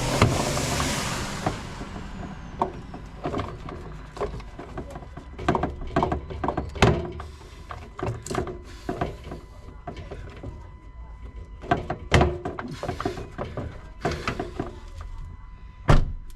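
Hand tools and plastic car trim clicking and knocking irregularly as panels are worked loose, with a rush of noise in the first second or so and one sharp knock near the end.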